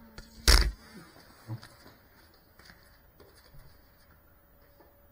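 A single loud, sharp knock about half a second in as the small FPV drone is set down on the tiled floor, followed by a few faint taps.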